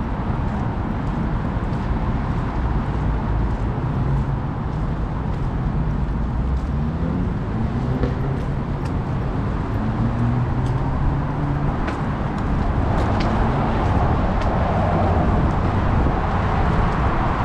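City road traffic: a steady rumble of car engines and tyres, with engine notes shifting as vehicles pass and a louder passing vehicle swelling in from about thirteen seconds in.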